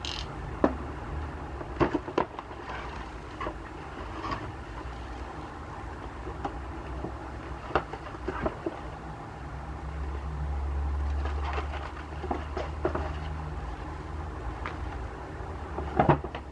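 Paper shopping bag rustling as small cardboard tea boxes and a foil tea pouch are taken out and set down on a table, giving a scatter of light knocks and taps, with a cluster of sharper ones near the end. A steady low background rumble runs underneath and swells for a couple of seconds past the middle.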